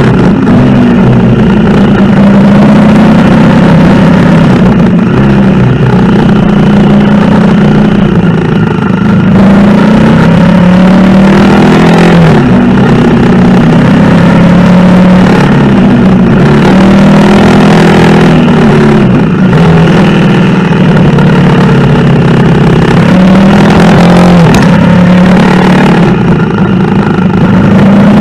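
Honda CRF250L's single-cylinder four-stroke engine running under way, its revs rising and falling again and again with the throttle.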